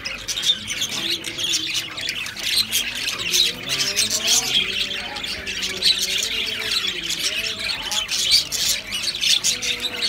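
A flock of caged budgerigars and cockatiels chattering and squawking all at once: a dense, unbroken mass of sharp chirps and calls.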